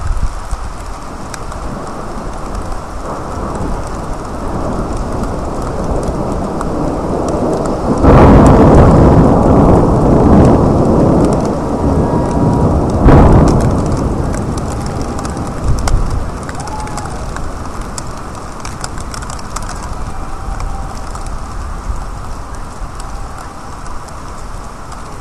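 Steady rain, then a loud thunderclap about eight seconds in that rolls on for several seconds, with a second sharp crack some five seconds later before the rumble fades back to the rain.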